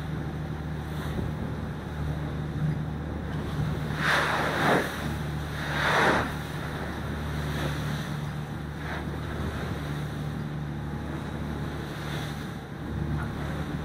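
Sailboat pounding into steep waves under power: a steady low engine hum under wind and water noise, with two loud rushes of spray washing over the bow and against the cockpit enclosure about four and six seconds in.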